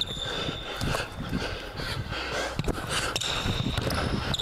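Basketball being dribbled on a hardwood gym floor, with sharp repeated bounces and a long high sneaker squeak that drops out early and returns about three seconds in.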